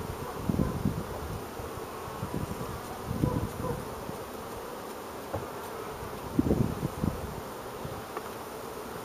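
Carniolan honeybees buzzing in a steady hum around an open hive during a honey harvest, with a few louder low bumps about three and six and a half seconds in.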